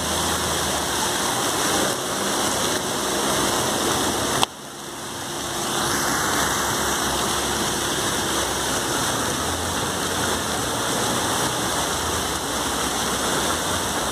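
Ornamental fountain with many water jets, splashing steadily into its stone basin. About four and a half seconds in there is a sharp click, and the splashing drops away and swells back up over the next second or two.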